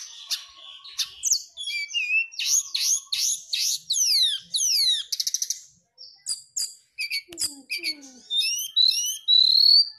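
Brown-chested jungle flycatcher singing a fast, varied song of high whistled notes and chirps. It includes a run of about six sharply falling whistles a few seconds in and a long rising whistle near the end.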